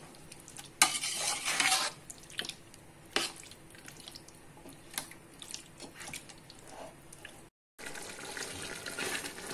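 Chicken pieces being stirred in a wet tomato-yogurt masala with a slotted metal spoon in a metal pot over high heat: wet squelching and scraping, with a loud rasping scrape about a second in and a few clinks of spoon on pot. After a short dropout near the end, a steady frying hiss.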